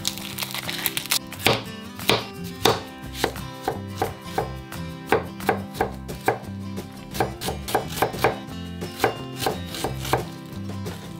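A kitchen knife dicing zucchini and onion on a cutting board: a steady run of sharp chopping strikes, about two a second.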